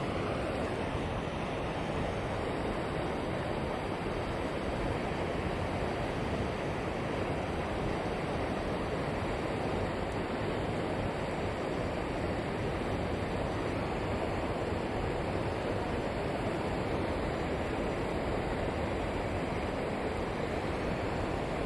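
Steady rushing noise of flowing river water, even and unbroken throughout.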